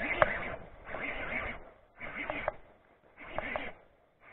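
Baitcasting reel cranked close to the microphone in short spurts, about one a second, reeling in a small bass.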